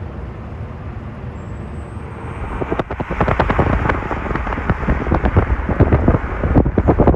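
Jet engines of a landing jet on approach, a steady rumble that grows louder about three seconds in as the plane nears. Gusts of wind buffet the microphone over it.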